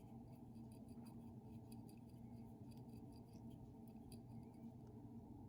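Near silence: room tone with a faint steady hum and a few faint small clicks.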